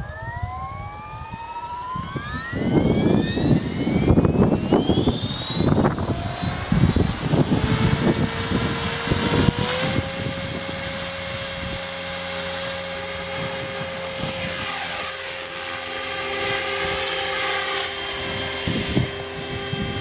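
Electric RC helicopter (CopterX 500) spooling up: the motor and rotor whine rises steadily in pitch for about ten seconds, then holds at a steady high whine once the rotor is up to flying speed. Gusts of strong wind rumble on the microphone during the spool-up.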